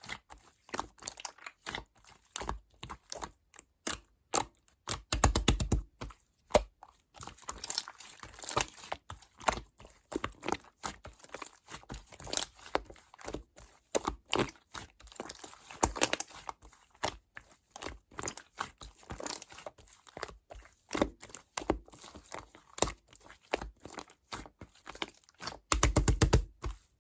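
Slime being squished and worked by hand: an irregular run of sticky clicks, pops and crackles, with two denser bursts of rapid popping about five seconds in and near the end.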